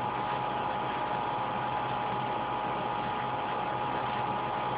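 Steady hiss with a low electrical hum and a faint steady whine, unchanging throughout: the background noise of the recording itself.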